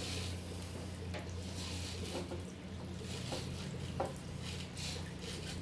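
A wet foam filter sponge being worked back out of an aquarium: soft squishing and water sloshing with a few small knocks, over the steady low hum of an aquarium air pump.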